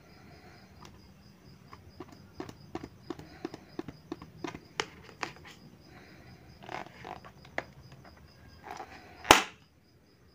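Wooden toothpick tapping and pricking at a taut rubber balloon, a quick run of sharp ticks with a little rubbery scratching, then the balloon bursts with one loud pop about nine seconds in.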